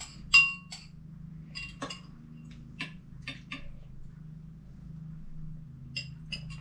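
Metal spoons clinking against ceramic soup bowls and plates: a series of light, irregular clinks, each with a brief ring, the loudest about a third of a second in and a small cluster near the end.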